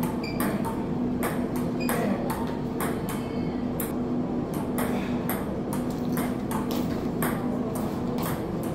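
Table tennis rally: the ball clicks back and forth off paddles and table, about three sharp clicks a second, over a steady low hum.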